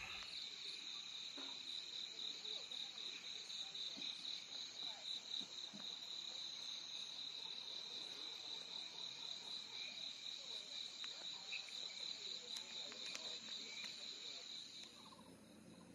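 Night insects chirping in a steady, high, rapidly pulsing trill, fading away near the end.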